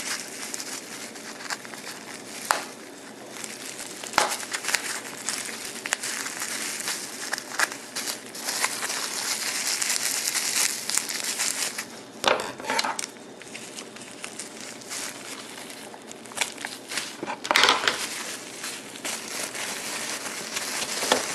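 Packing material crinkling and rustling as it is handled and pulled out of a small box, with scattered clicks and knocks and a few louder rustles.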